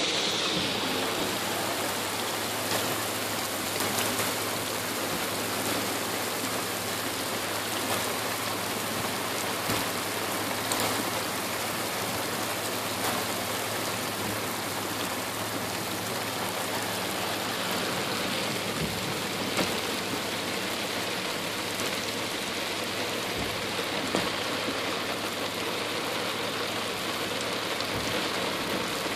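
Heavy rain beating steadily on a car's windows and body, heard from inside the car.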